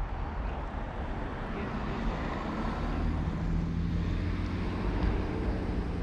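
Road traffic noise over a constant low rumble, with a motor vehicle's engine hum becoming clear from about halfway through.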